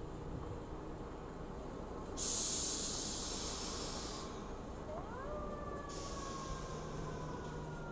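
R46 subway train standing at the platform: a sudden burst of air hiss from its air system about two seconds in, lasting about two seconds, then a whine that rises in pitch and settles into a steady tone that slowly falls, with a second, quieter air hiss near the end.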